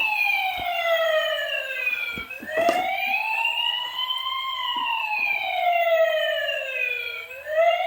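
Battery-powered toy ladder fire truck's electronic siren wailing, its pitch sliding slowly down and up, about one full rise and fall every five seconds. A few handling clicks come about two and a half seconds in.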